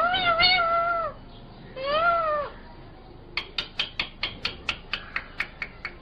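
Indian ringneck parakeet calling: a drawn-out call of about a second, then a shorter call that rises and falls in pitch, followed about halfway through by a quick run of short, sharp chirps, several a second.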